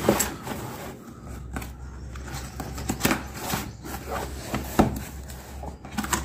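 Cardboard box being handled and its end flap pulled open: irregular rubbing, scraping and tapping of cardboard, with one sharper knock about three-quarters of the way through.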